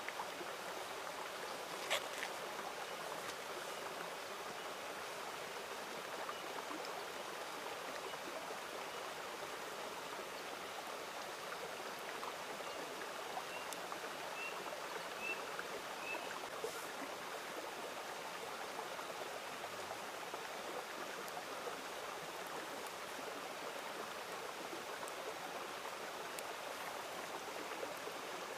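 Steady rushing of a forest river, with a single sharp click about two seconds in and a few faint short chirps midway.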